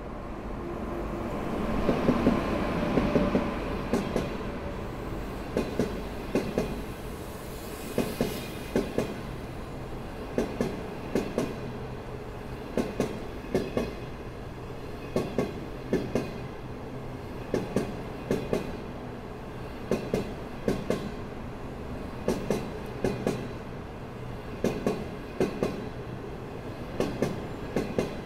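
An HXD1D electric passenger locomotive passes in a rising rush of rolling and machinery noise that peaks a few seconds in. Its green passenger coaches follow, their wheels clacking over the rails in quick groups about every two and a half seconds as each pair of bogies goes by.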